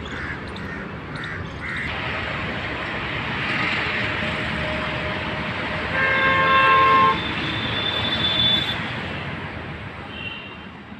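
Road traffic passing with a steady wash of engine and tyre noise, and a vehicle horn honking for about a second, the loudest sound, some six seconds in, with fainter short toots after.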